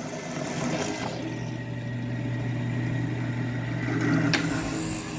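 Drill press motor running with a steady hum. About four seconds in, a high, thin whine joins as the bit bores into the old strap's fastener.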